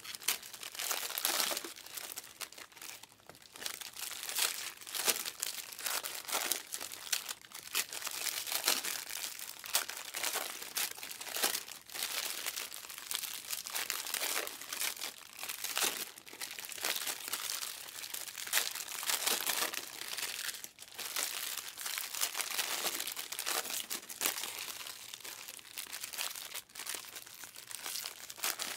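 Foil wrappers of Panini Prizm card packs being torn open and crinkled while the cards are handled, a steady crackling with frequent sharper rips.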